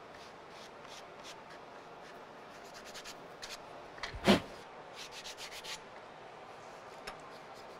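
Wooden spoon being sanded by hand with sandpaper: short rasping strokes in quick runs, rounding off its corners. A single sharp knock about four seconds in.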